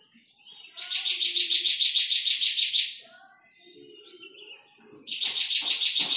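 Bar-winged prinia (ciblek) calling: two loud runs of rapid, evenly repeated high notes, about eight a second, each lasting around two seconds, with fainter chirps between them.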